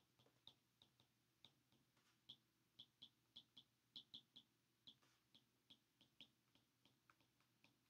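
Near silence broken by faint, irregular light ticks of a stylus tip tapping on a tablet's glass screen during handwriting, about twenty of them.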